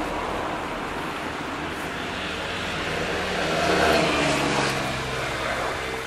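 A road vehicle passing by, growing louder to a peak a little past the middle and then fading, over a steady outdoor background hiss.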